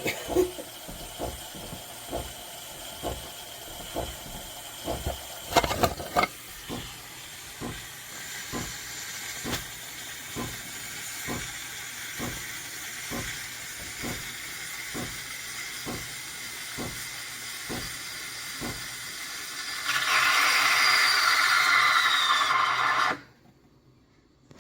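Espresso machine steam wand frothing milk in a stainless steel jug: a steady hiss with a regular ticking a little under two times a second. Near the end the hiss turns much louder for about three seconds, then cuts off suddenly as the automatic frothing cycle finishes.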